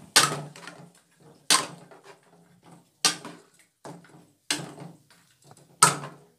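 Steel ladle scraping and knocking against a steel pan while chicken and yogurt are stirred: about six sharp strokes, a second or so apart, each dying away quickly.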